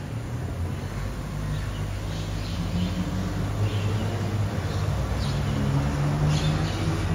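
BYD electric garbage truck humming low as it pulls away, the pitch of the hum stepping up and down as it moves, with birds chirping now and then.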